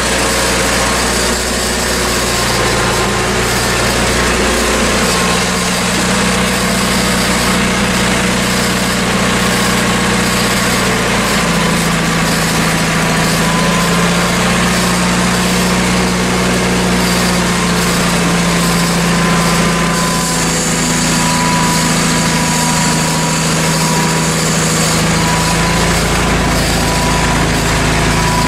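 John Deere lawn tractor's engine running steadily. Its pitch steps up slightly about a dozen seconds in, with a thin whine above it.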